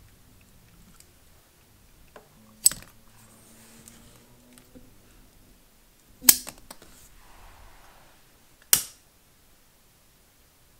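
Steel scissors snipping candle wicks in beeswax candles: three sharp clicks a few seconds apart, the middle one followed by a few smaller clicks.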